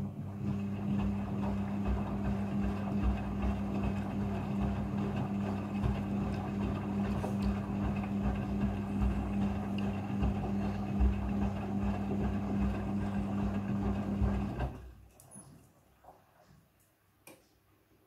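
Midea front-loading washing machine running during a rinse cycle: a steady mechanical hum with water sloshing and churning in the drum. It starts suddenly and stops about fifteen seconds in.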